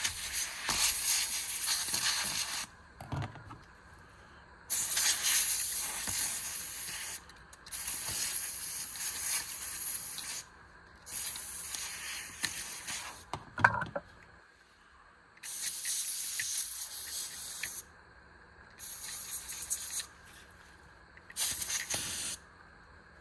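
Can of compressed-air duster blowing in about seven separate hissing blasts, each one to three seconds long, with short pauses between. A single sharp click comes just before the middle of the sequence.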